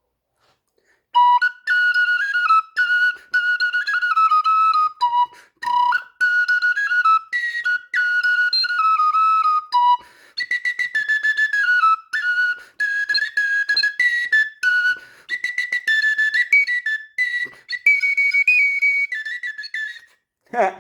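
Small wooden bird flute in B, its highest key, played as a quick melody of short, high, breathy whistling notes that step up and down in pitch and move higher in the second half.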